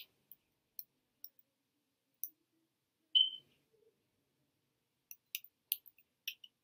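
Computer keyboard keys tapped: a few scattered single clicks, then a quick run of keystrokes near the end. About three seconds in comes one louder, short ringing ping, the loudest sound.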